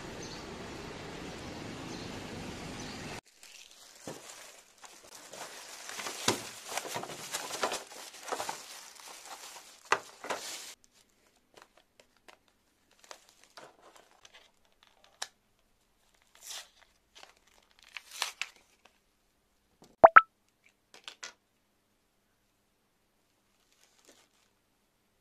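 Steady background noise for the first three seconds, then plastic blister packaging crinkling and tearing as it is opened by hand. After that come scattered light handling taps, and a sharp double click about twenty seconds in, the loudest sound.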